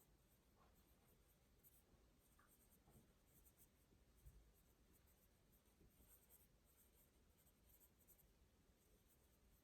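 Near silence with faint scratching of writing on paper in short irregular strokes, and a soft low bump about four seconds in.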